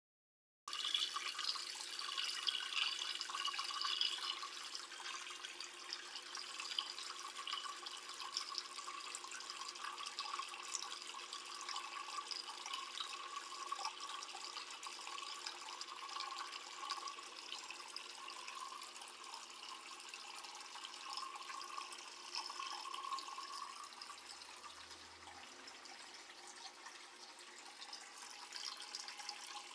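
Water running and splashing inside an Electrolux washing machine, a steady rushing flow that starts about half a second in and is loudest for the first few seconds.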